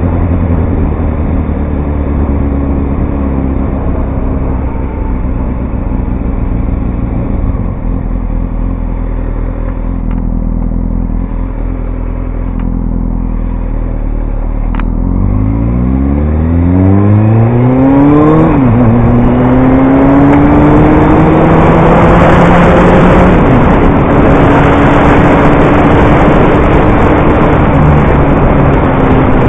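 Motorcycle engine heard from a helmet-mounted camera: running low and steady at first, then revving up from about halfway, with a sudden drop in pitch as it shifts up before climbing again and settling. Wind rush over the microphone builds as the bike gathers speed.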